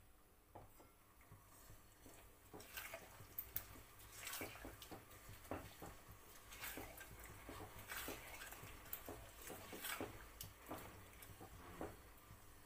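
Chicken and yogurt masala cooking in a kadhai on a high flame, faintly bubbling and spluttering with scattered small pops.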